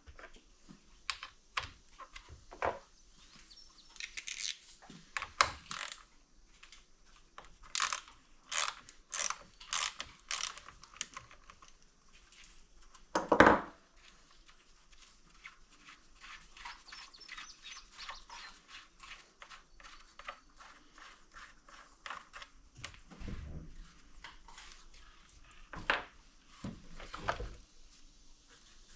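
Hand-tool and parts handling while a new handle is fitted to a Husqvarna 326L string trimmer's shaft: irregular clicks, rattles and knocks, with quick runs of clicking and one louder knock about halfway through.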